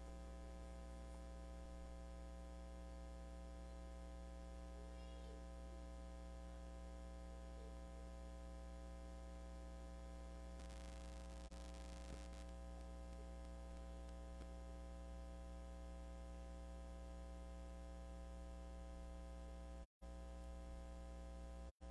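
Steady low-level electrical mains hum with a buzzy stack of overtones, unchanging throughout; the audio drops out briefly twice near the end.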